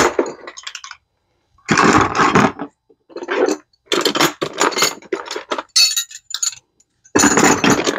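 Metal hand tools, combination wrenches among them, clinking and clattering against each other as they are handled and sorted into a toolbox, in several short bursts.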